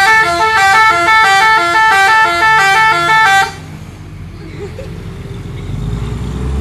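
Truck's telolet horn, a multi-tone musical horn, playing a fast repeating melody of alternating notes and cutting off about three and a half seconds in. A low rumble follows, growing louder near the end.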